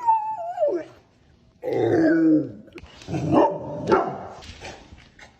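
A dog vocalising in drawn-out, speech-like calls: a high wavering whine that falls in pitch in the first second, then, after a short pause, a series of lower grumbling howls.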